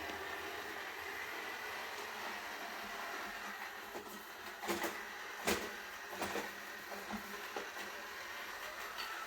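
Roomba robot vacuum running, a steady whirring hum, with a few sharp knocks in the middle.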